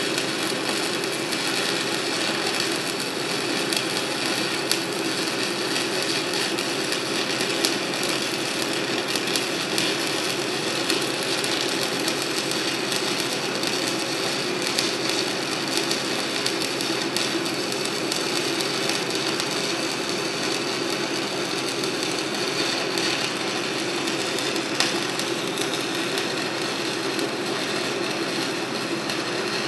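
Stick (shielded metal arc) welding arc crackling steadily with a dense patter of small pops as the hot pass is run on 6-inch schedule 40 pipe.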